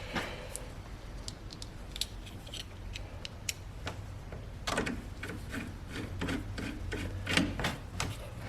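Hands working on a car headlight assembly: irregular small clicks, taps and rubbing of plastic and metal parts, busier in the second half, with the sharpest knock a little over seven seconds in.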